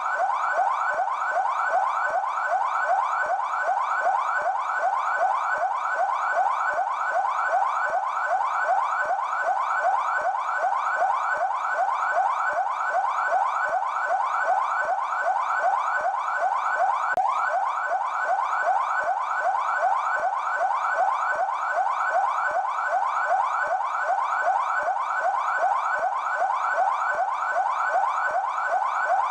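São Paulo Military Police (PMESP) siren sounding its yelp tone: a rapid, steady up-and-down sweep repeating about three to four times a second without a break.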